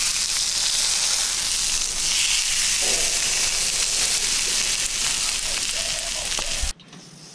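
Pizza slices sizzling in a hot frying pan, a steady hiss of frying; it cuts off suddenly near the end.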